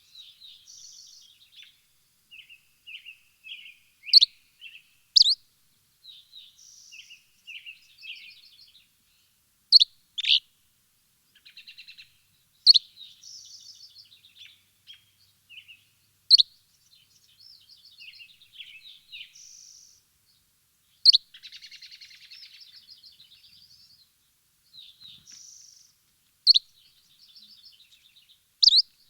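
Birds chirping and twittering: loud, sharp single chirps every few seconds over softer warbling trills and twitters.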